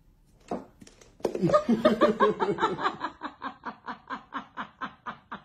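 A person laughing hard in rapid, repeated bursts, about four a second, that trail off toward the end.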